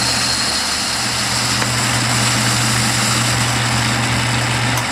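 Metal lathe running a finishing pass on a cast iron bar, the tool taking a light cut of about fourteen thousandths: a steady machine hum with an even hiss over it. The low hum stops just before the end.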